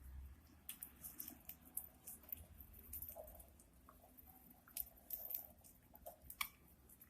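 Budgies pecking and nibbling at food: a faint, irregular scatter of small sharp clicks and crunches from their beaks.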